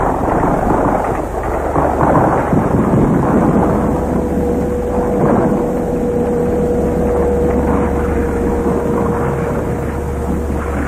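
Dense, continuous gunfire and explosions from a battle, heard as a muffled rumbling crackle on an old film soundtrack. A steady hum tone joins it a few seconds in.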